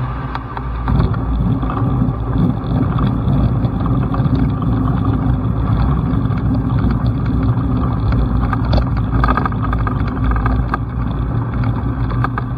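Kitfox light airplane's engine and propeller running steadily, heard from inside the cockpit while the plane is on the grass strip, a little louder from about a second in.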